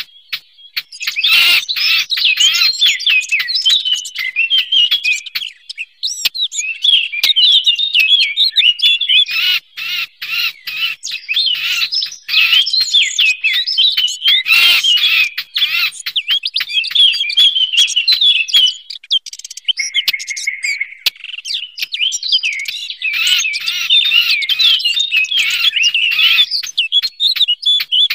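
Eurasian blackcap singing: a fast, continuous warble of high twittering notes, broken by brief pauses, with a short steady lower note about two-thirds of the way through.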